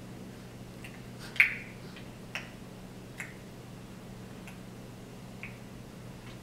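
A baby clicking his tongue: five or so short, sharp clicks roughly a second apart, the one about a second and a half in the loudest, the last ones fainter.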